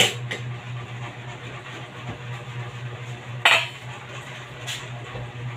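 A cooking spoon clinking against a wok of greens: a sharp knock at the start, the loudest knock with a brief ring about three and a half seconds in, and a lighter one about a second later, over a steady low hum.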